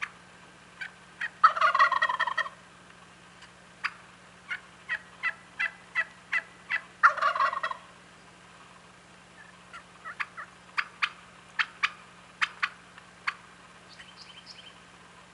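Wild turkey gobbler gobbling twice, each rattling gobble about a second long and about five seconds apart. Between and after the gobbles, quick runs of short sharp calls, a few a second.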